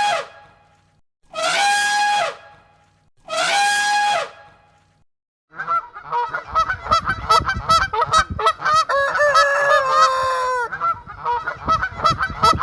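Geese honking: three single honks each with a short drop in pitch at its end, then, after a pause, a whole flock honking over one another.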